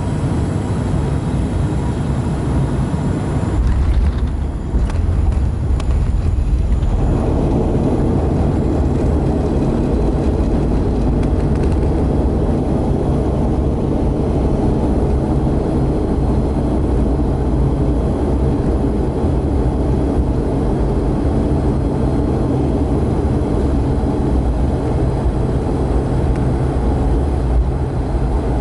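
Airliner cabin noise: a steady loud rumble of engines and airflow. About four seconds in the deep rumble gets heavier while the higher roar briefly fades, then comes back a few seconds later.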